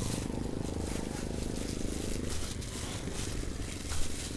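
A motorcycle engine running as it goes by on the road, fading out a little over two seconds in, over the crinkle of a plastic bag being handled and tied, with a short sharp knock about four seconds in.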